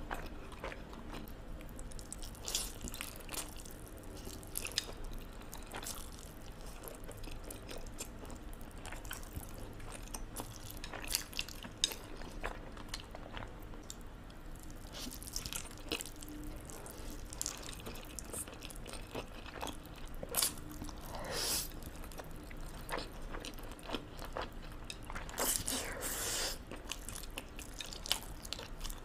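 Close-miked eating of spicy carbonara instant noodles: wet chewing and mouth clicks, a few longer slurps in the second half, and occasional crunches of pickled yellow radish.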